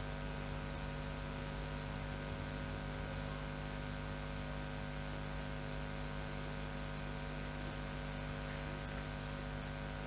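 Steady electrical mains hum made of many fixed tones, over an even hiss, unchanging throughout; no tool sounds stand out above it.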